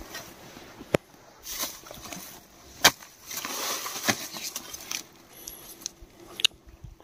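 Short-handled hoe digging into dry soil and roots to open a rat's burrow: four sharp strikes, the loudest about three seconds in, with loose earth scraping and crumbling between them.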